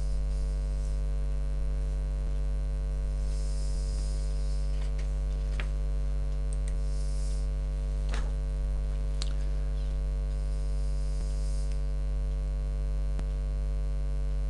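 Steady low mains hum, with a few faint clicks.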